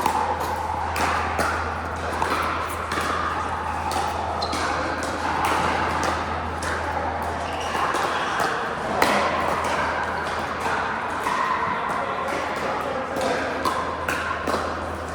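Pickleball paddles striking the plastic ball: sharp pops at irregular intervals over background chatter.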